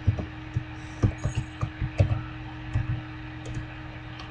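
Computer keyboard keys tapped one at a time as a short code is typed: a dozen or so irregularly spaced clicks, over a steady low hum.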